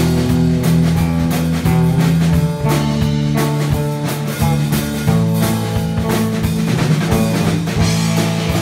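Rock band playing live, with guitar and a drum kit over a held bass line, loud and steady.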